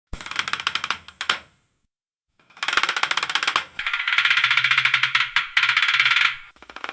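Roulette wheel with the ball clicking and rattling rapidly as it rolls, in several bursts cut apart by brief silences, with a longer steady run of rolling clicks in the middle.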